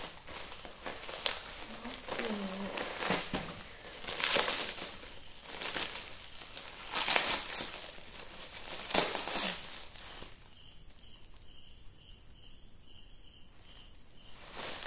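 Black plastic bag wrapping rustling and crinkling in repeated bursts as it is pulled and folded open by hand. In the last few seconds it goes quieter, with a faint high pulse repeating about three times a second.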